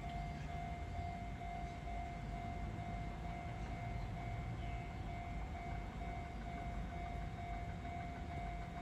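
Railway level-crossing alarm ringing with a steady, evenly repeating ding, over a low rumble.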